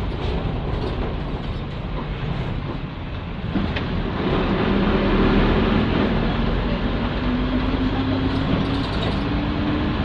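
Nissan Diesel PE6H six-cylinder diesel of a U31L bus heard from inside the cabin, running steadily, then after a short clunk about three and a half seconds in it pulls harder and its note climbs steadily as the bus accelerates.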